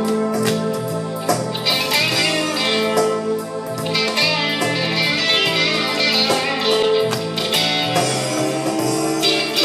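1979 Fender Stratocaster electric guitar played through a Fender Mustang I amplifier: a continuous run of picked notes and chords.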